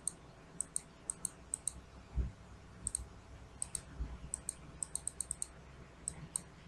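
Faint computer mouse clicking, a dozen or so sharp clicks, many as quick press-and-release pairs. A soft low thump comes about two seconds in and another about four seconds in.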